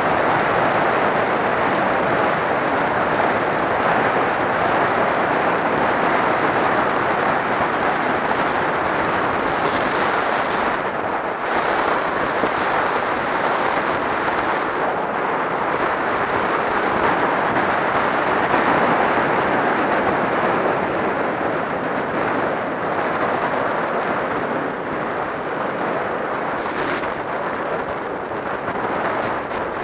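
Steady wind rush over a helmet-mounted camera's microphone on a moving sport motorcycle, with the bike's engine and tyre noise blended into it.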